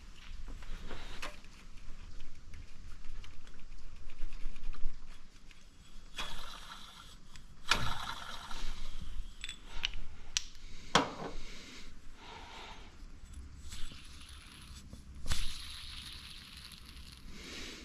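Metal tools and parts being handled: irregular sharp clinks and clicks with short scraping passages, some ratchet-like.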